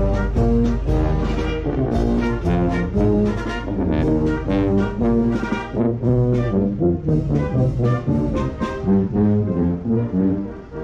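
Marching brass band playing a march as it walks: trumpets, trombones and sousaphones over a steady beat of bass drum and cymbals.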